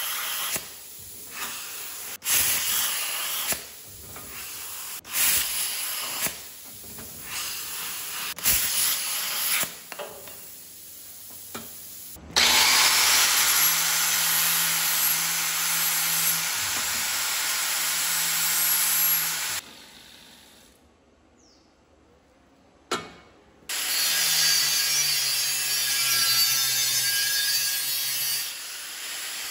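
A plasma cutter hissing through steel tubing in several short cut-together bursts. Then an angle grinder with a cut-off disc runs steadily as it cuts steel tubing, stops for a few seconds about two-thirds of the way through, and starts cutting again.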